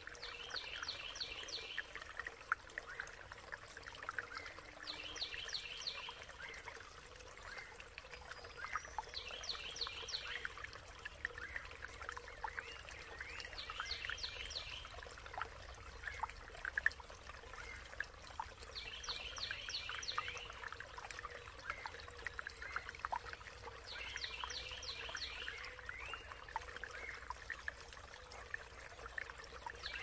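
Brook trickling and babbling over stones, with a songbird repeating a short phrase of rapid notes about every five seconds and other birds chirping between.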